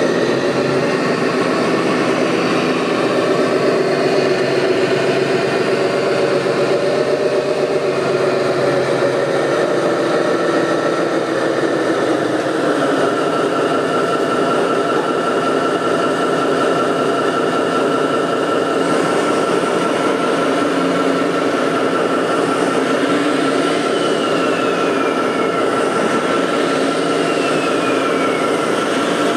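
Steady mechanical running noise with a held high whine, and two short falling whines near the end.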